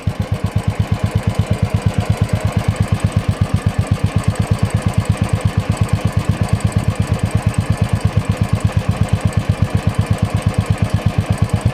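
Royal Enfield Thunderbird's single-cylinder four-stroke engine idling through its stock silencer: a steady exhaust thump, about seven or eight beats a second.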